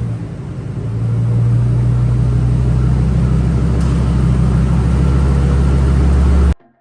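Vehicle engine running at a steady idle just after starting, cut off abruptly near the end.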